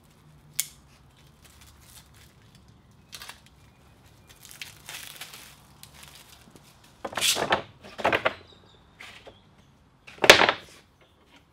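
Plastic wrapping being cut and torn off a bundle of new 2x72 abrasive grinder belts, with crinkling and handling rustles in short bursts, loudest about seven, eight and ten seconds in.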